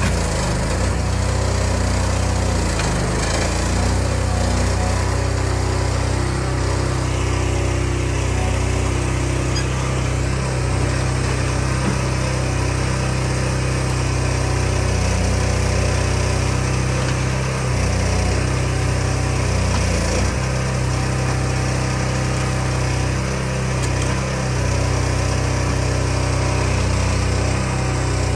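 Hydraulic log loader's engine running steadily under load as the knuckleboom and grapple work the logs.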